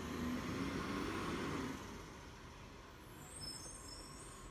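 Rubbish truck's engine running as it drives away, loud at first and falling off about two seconds in.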